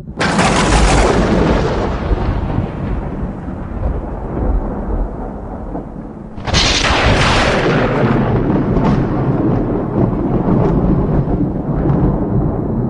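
Thunder: a loud clap right at the start that rolls off into a long rumble, then a second sharp clap about six and a half seconds in, followed by more rolling rumble with faint crackles.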